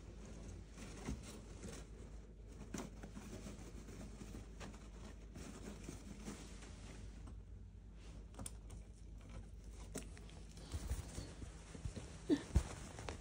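Faint rustling and crinkling of shredded paper towels as a squirrel shifts about in its nest, with a few soft thumps near the end.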